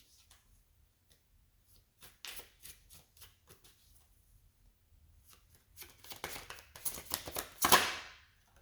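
Tarot cards being shuffled and handled: a short spell of quick papery flicks about two seconds in, then a longer, denser run of shuffling that is loudest near the end.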